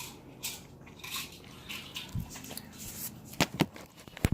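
Slime and plastic toys being handled: soft sticky rustling, with a few sharp clicks near the end.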